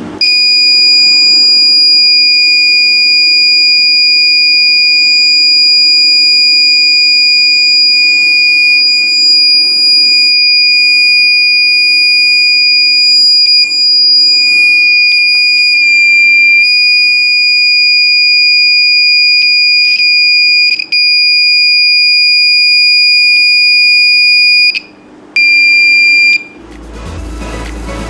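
Small buzzer in a BC547 transistor alarm circuit sounding: the alarm is triggered and gives a loud, steady, high-pitched tone. Near the end it cuts off, sounds once more briefly, then stops.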